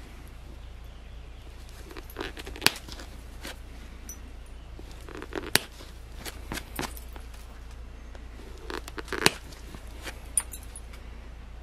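Pressure flaking a flint arrowhead: the pressure flaker's tip scratches along the stone's edge and then a flake pops off with a sharp click, about five times a few seconds apart.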